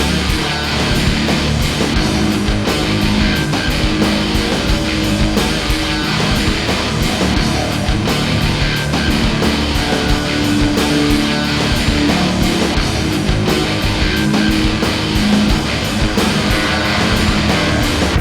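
Loud rock or heavy-metal music with distorted electric guitar and drums, playing steadily.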